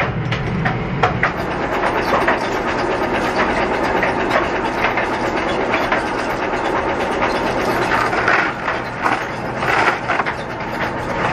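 Steel chain rattling and clinking as it is handled in and out of liquid, with water splashing and pouring off it, over a low steady hum.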